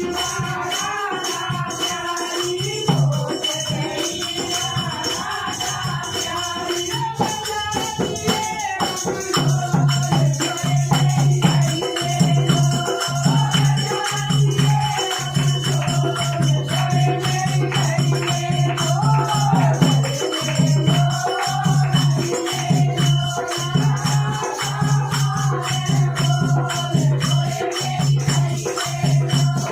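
Hindi devotional bhajan: a woman's sung melody with rattling percussion, joined about nine seconds in by a steady low pulsing beat.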